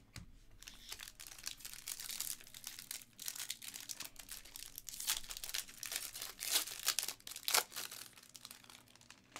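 Foil trading-card pack wrapper crinkling as it is handled and opened, an irregular run of crackles with the sharpest about seven seconds in.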